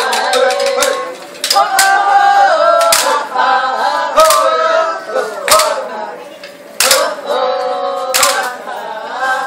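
Voices singing together in a traditional dance song, punctuated by sharp percussive strikes at a slow, steady beat a little over a second apart.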